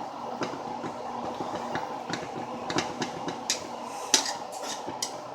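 A utensil stirring sauce in a pan, clinking and scraping against the pan at irregular moments, over a steady background hiss.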